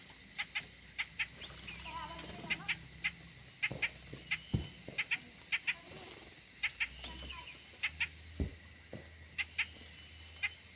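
Aviary birds calling: many short, sharp chirps at irregular intervals, with two brief high rising whistles.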